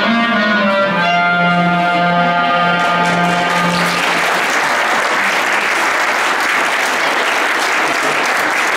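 A clarinet ensemble holds its closing chord, which stops about four seconds in, and audience applause takes over.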